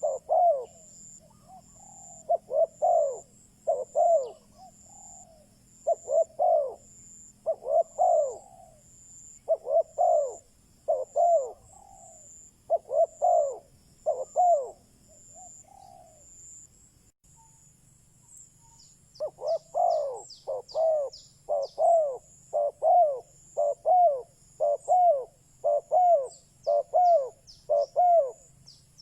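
Spotted dove cooing, the decoy male's song used to lure wild doves: a steady run of repeated coo phrases, a pause of about three seconds past the middle, then a quicker run of coos.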